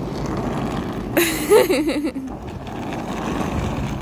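Steady outdoor rumble of road traffic and cars at an airport drop-off lane. About a second in there is a short, louder wavering voice-like sound lasting about a second.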